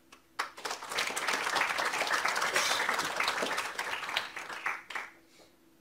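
Audience applauding: many hands clapping, starting about half a second in, holding steady, then dying away about five seconds in.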